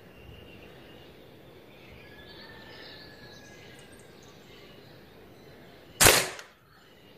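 BSA Stutzen .177 spring air rifle firing one shot about six seconds in: a sharp crack that dies away within half a second.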